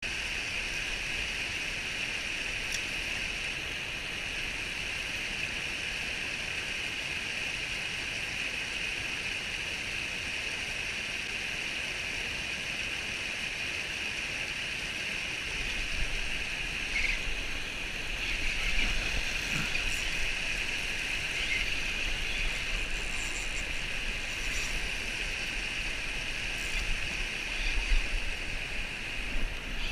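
Steady rush of river current. From about halfway through, a low, uneven rumble on the microphone joins it.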